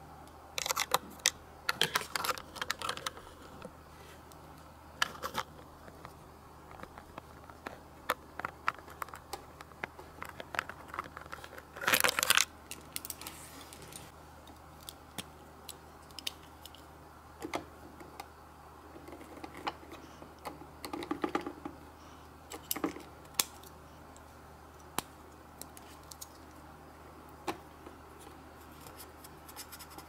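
Small plastic toys handled: scattered short clicks and taps of plastic pieces, with one louder noise lasting about half a second about twelve seconds in.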